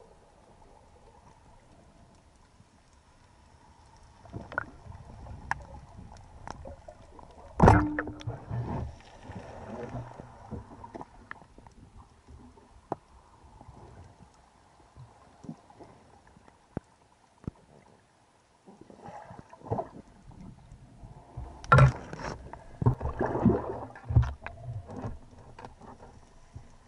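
Underwater handling noise from a spearfishing speargun and its mounted camera: scattered clicks and knocks with a faint water background. There is one loud, sharp knock about eight seconds in and a cluster of knocks with bubbling water around twenty-two to twenty-four seconds in.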